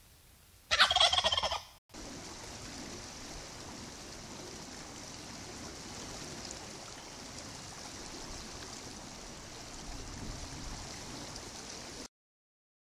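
A wild turkey gobbles once, loud and brief, about a second in. After a short break a steady hiss runs on and cuts off suddenly near the end.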